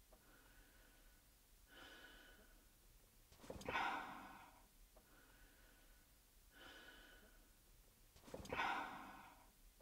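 A person breathing slowly and heavily close to the microphone: two loud sighing breaths about five seconds apart, each preceded by a fainter breath.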